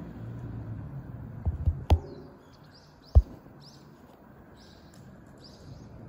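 Common kingfisher calling: a run of short, high, falling notes about every half-second, starting about two seconds in. A sharp click comes just before the calls begin, and a louder sharp knock about three seconds in.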